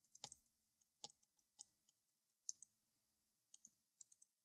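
Faint, scattered clicks of a computer mouse and keyboard, about ten short irregular clicks, the sharpest about two and a half seconds in, against near silence.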